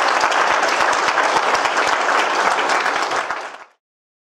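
Audience applauding. The applause fades out quickly about three and a half seconds in.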